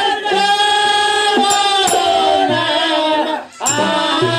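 A man singing a Kannada dollina pada folk song through a microphone, in long, drawn-out held notes, with sharp percussive clicks of the accompaniment. The singing breaks off briefly about three and a half seconds in.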